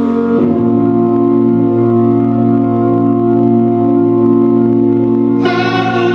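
Background music: a sustained organ chord held steady, with brighter notes joining about five and a half seconds in.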